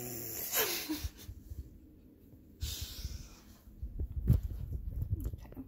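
A dog breathing noisily and snorting close to the microphone, then several dull thumps as the phone is handled, the loudest about four seconds in.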